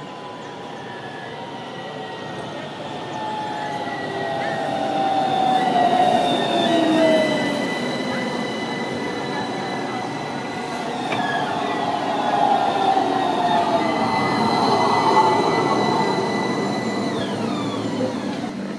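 AnsaldoBreda Sirio trams running past on the rails, their electric drives whining and falling in pitch, with thin high tones like wheel squeal. The noise swells twice, about six and fifteen seconds in.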